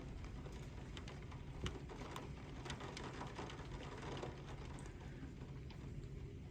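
Rain falling in a thunderstorm: scattered drops ticking sharply over a steady hiss and a low rumble.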